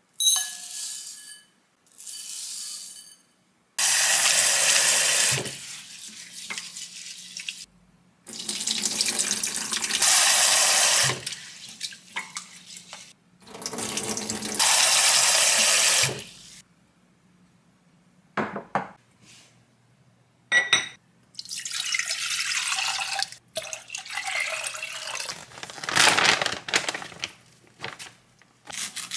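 Rice being washed in a glass bowl at a stainless steel kitchen sink. Tap water runs into the bowl in three long spells, and the cloudy rinse water is poured off into the sink.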